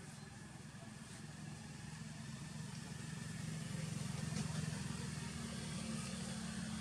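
Low, steady hum of a distant motor vehicle engine, swelling to a peak about two-thirds of the way through and then easing slightly, with faint rustles of dry leaves.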